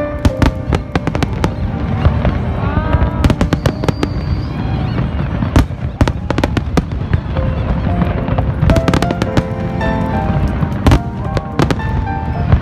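Fireworks display: rapid, irregular bangs and crackles of shells bursting throughout, with music playing underneath.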